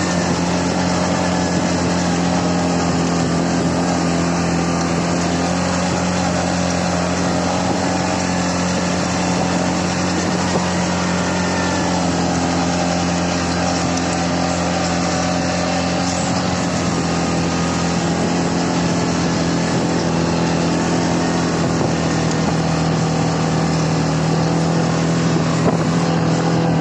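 CFMoto 520L ATV engine running at a steady, even pitch while driving.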